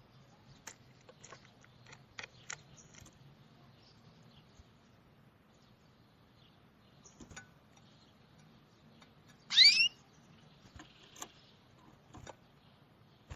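Small songbirds calling with scattered short chirps. About two-thirds of the way in comes one loud, quick whistle that sweeps upward in pitch.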